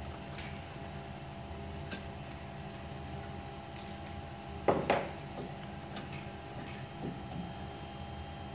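Small clicks and handling noises of hands working a wire bundle and its cable ties, with two sharp snaps close together about halfway through, over a steady low hum.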